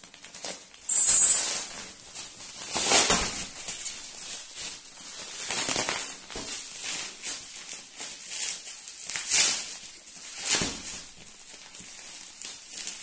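Clear plastic wrapping around a folded bedding set crinkling and crackling as hands pull at it and unwrap it, in irregular rustles with a sharp, loud crackle about a second in.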